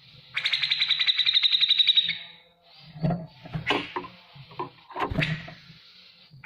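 Grey-cheeked bulbul (cucak jenggot) calling: a rapid ticking rattle of about ten notes a second for about two seconds, then a few short, harsher separate calls, with another rattle starting right at the end.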